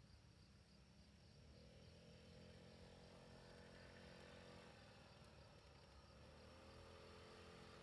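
Crickets chirping steadily and faintly, while the Honda Ruckus scooter's small four-stroke single-cylinder engine approaches. Its faint hum comes in about a second and a half in and grows slowly louder, rising a little in pitch.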